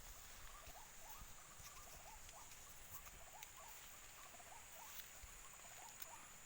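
Faint, quick run of short squeaky chirps, each rising in pitch, several a second in loose clusters, from an unidentified small bird. A steady thin high whine runs underneath.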